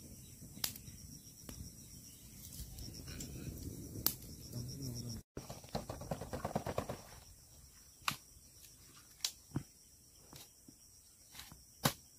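Insects chirping steadily in the background, with scattered sharp clicks and knocks: a wood fire crackling in the first few seconds, then green bamboo tubes being handled and packed with food.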